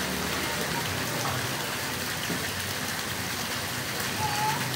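Small waterfall splashing steadily into a pool.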